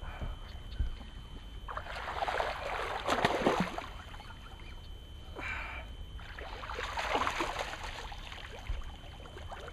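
Irregular bursts of water splashing as a hooked bass thrashes at the surface beside the boat during the fight, in two main spells of about two seconds each with a short one between.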